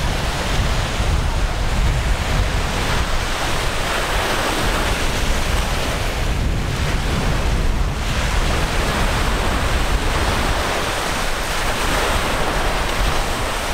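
Gulf of Mexico surf washing in steadily, with wind buffeting the microphone as a heavy low rumble.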